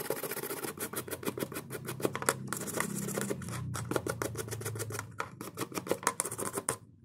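Toothbrush bristles scrubbing a phone's circuit board and a small plastic part in quick back-and-forth strokes; the scrubbing stops abruptly near the end.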